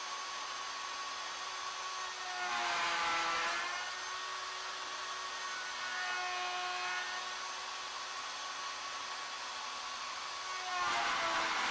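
Wood router with a bullnose bit, run under CNC control on an ornamental mill, cutting a wooden table leg: a steady motor whine, with louder cutting noise for about a second around three seconds in and again near the end as the bit bites deeper into the wood.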